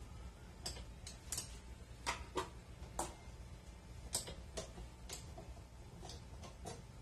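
Scattered light clicks and taps, about fifteen at irregular intervals, as the batter-coated flat beater of a stopped stand mixer is handled and taken off the tilted-up mixer head, over a faint steady hum.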